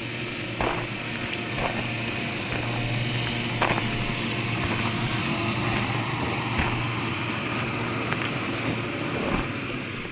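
1/10-scale RC crawler truck driving over dirt and gravel, its electric motor and gearbox giving a steady low hum with scattered clicks of tyres on stones.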